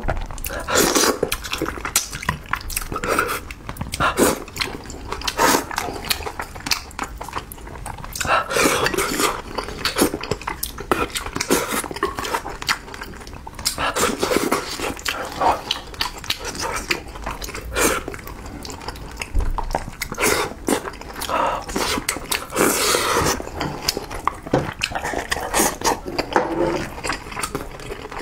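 Close-miked eating of spicy braised fish with chopsticks: irregular smacking, chewing and slurping, with sharp clicks of the chopsticks against the bowl.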